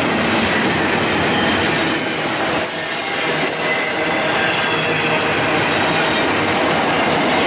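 Double-stack container well cars of a freight train rolling past slowly: a steady, continuous rumble and rattle of steel wheels on the rails.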